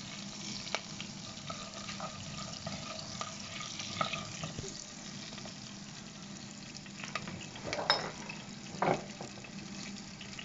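Curry leaves, mustard seeds and fenugreek sizzling steadily in hot sesame oil in a saucepan, with scattered clicks and a spoon scraping against the pan, the loudest scrapes about 8 and 9 seconds in.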